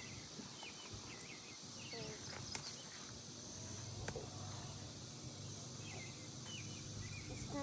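Quiet garden ambience: a steady high insect hum with short, faint bird chirps and a couple of small clicks.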